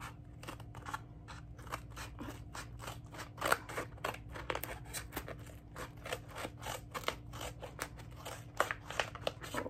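Small scissors snipping repeatedly through a white mailer envelope, a quick run of short crisp cuts, several a second, as the package is slowly cut open.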